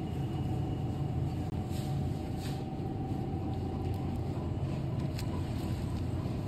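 Steady low rumble with a faint constant hum and a few light ticks: supermarket background noise.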